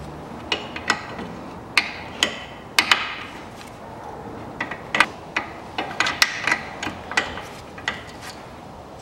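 Irregular sharp metallic clicks and clinks of a wrench working a nut on a car's front suspension while the ball-joint nut is tightened.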